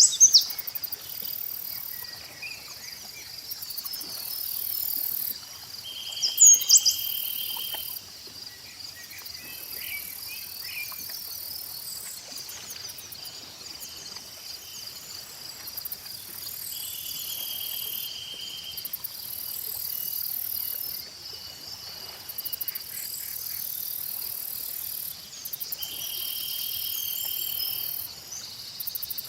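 Lakeside nature ambience dominated by a chorus of insects, their high shrill trilling switching on and off in long stretches. Birds chirp over it, with the loudest calls right at the start and again about six seconds in, and a steadier trill sounds three times for a couple of seconds each.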